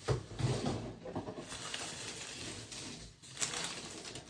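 Baseball cards and pack wrappers being gathered up and slid across a tabletop: a continuous rustle and light scraping with many small clicks, briefly dropping and coming back louder about three seconds in.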